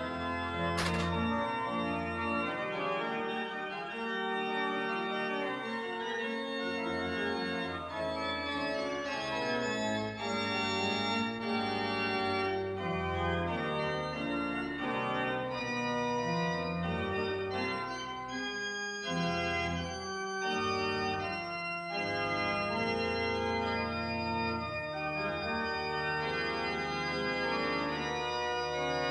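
Church organ playing a piece of music in sustained chords, the notes held and changing every second or two.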